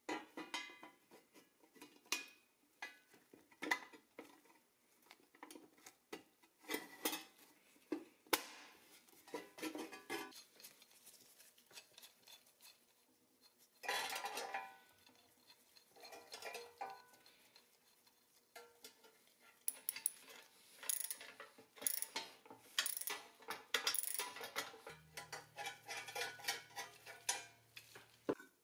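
Small metal clinks, taps and clatter as pressed-steel toy crane cab parts and a steel hand tool are handled and fitted together on a wooden bench, with a denser run of clinks in the last third.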